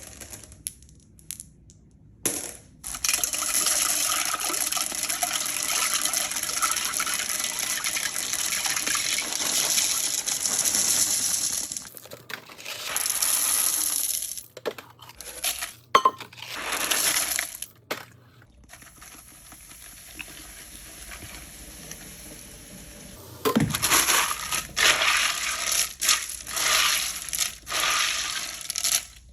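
Candy and snacks being poured into a toilet bowl: small hard pieces clatter and splash into the water in a long steady run, then in shorter stop-start pours.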